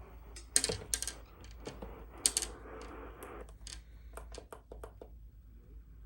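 A run of irregular sharp clicks and knocks, with two louder ones about half a second and two seconds in.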